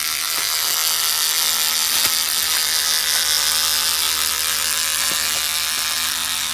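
Battery-powered electric rubber-tapping knife running steadily as its blade shaves a thin strip of bark along the tapping cut of a rubber tree: a high, even whir with a few faint ticks.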